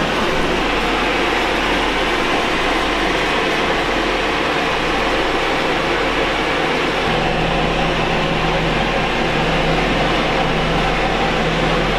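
Air scrubbers (air filtration machines) running steadily: a constant fan noise with a low hum underneath.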